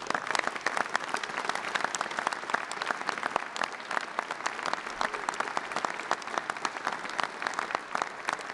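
Audience applause: a crowd of people clapping steadily.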